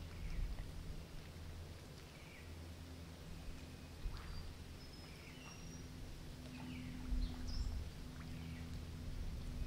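Scattered short chirps of small birds over a low rumble of breeze buffeting the microphone. The wind gets gustier from about two-thirds of the way through.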